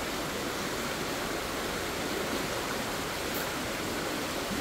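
River water rushing over rocks in shallow rapids, a steady, even rush.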